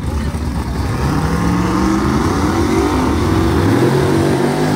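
Drag race car's engine revving up for a burnout: a low rumble that rises steadily in pitch from about a second in, then holds at high revs.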